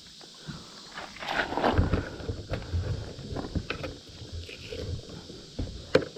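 Irregular knocks, low thumps and rustling from handling things aboard a kayak, busiest in the first half, with a sharp knock near the end.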